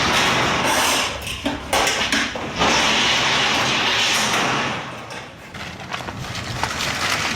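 Metal roller shutter of a garage arch rattling as it is pulled. The noise comes in long stretches and fades after about five seconds.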